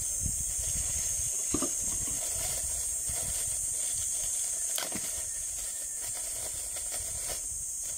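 Steady high-pitched hiss of insects in the surrounding trees, with a couple of faint clicks and rustles from plastic-wrapped tripod parts being handled.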